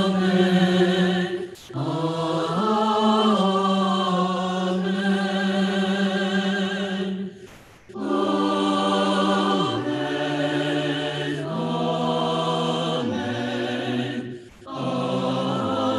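A choir sings a slow choral amen in long held chords. It is broken by brief breaths about a second and a half in, halfway through, and near the end.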